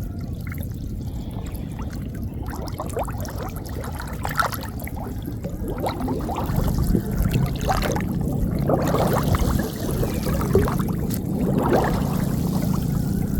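Water splashing and dripping, irregular and busier in the second half, as a gill net is worked through flooded-field water, over a steady low rumble.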